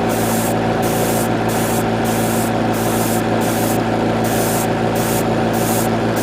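Airbrush spraying paint in short, repeated hisses, the air cut off and reopened about every half second in a very light pass, over the steady hum of its air compressor.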